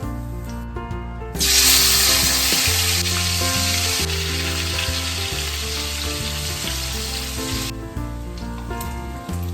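Food sizzling and frying in hot oil, starting suddenly about a second and a half in and cutting off near the end, over background music.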